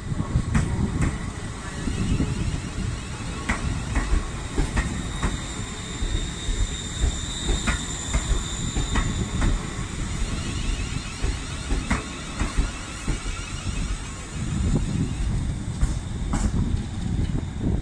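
ScotRail electric multiple unit running slowly past over station pointwork: a low rumble broken by irregular sharp clicks as the wheels cross rail joints and points, with a faint high wheel squeal in the middle.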